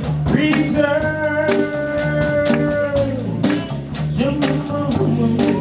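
Live jazz band with keyboard and drum kit playing; a melody line holds one long note from about a second in to about three seconds in, over regular cymbal strokes.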